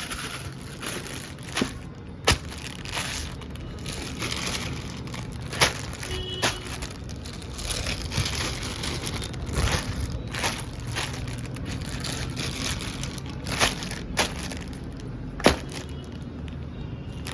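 Packaging of a bulk pack of mini balloons being handled and unboxed, with steady crinkling and rustling and about five sharp snaps along the way.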